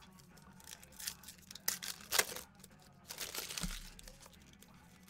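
Trading card pack wrappers being torn open and crinkled by hand in a few short bursts, loudest around two seconds in, over a faint steady low hum.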